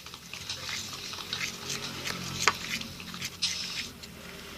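Clear-glue slime, nearly set after the activator was added, being stirred and squeezed in its container: irregular wet squelches and sticky pops, with one sharp click about two and a half seconds in.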